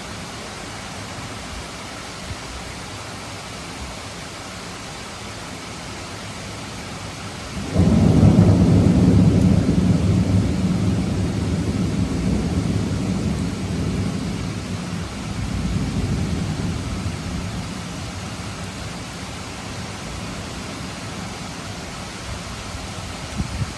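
Steady rain falling, with a sudden deep rumble of thunder breaking in about eight seconds in and slowly fading away over some ten seconds.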